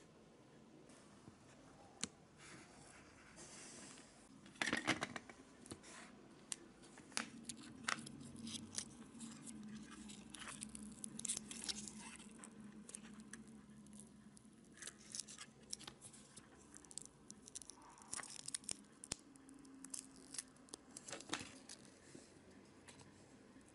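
Blue silicone mould being flexed and peeled off small black cast parts by hand: quiet, irregular crackling and tearing as the thin casting flash breaks away, with a louder cluster of clicks about five seconds in.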